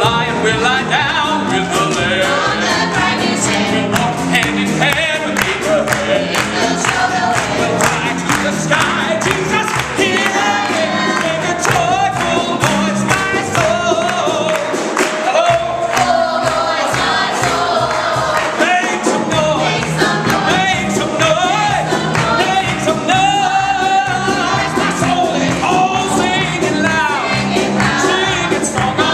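Gospel-style musical-theatre number: a male soloist belting, joined by a small mixed chorus, with piano, bass and drums behind them.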